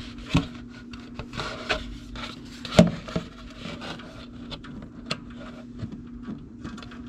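Handling noise under a generator as its small drain plug is removed with a socket wrench and the oil let out: a plastic catch bin rubbing and scraping against the metal underside, with a few sharp knocks. A steady low hum runs underneath.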